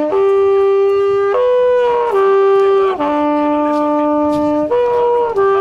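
Midwinter horn, a long wooden horn, being blown in a slow call of about six long held notes that step between three pitches, the lowest note held from about three seconds in.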